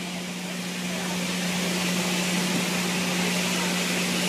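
Santa Fe 3751, a 4-8-4 steam locomotive, standing with a steady hiss and a constant low hum.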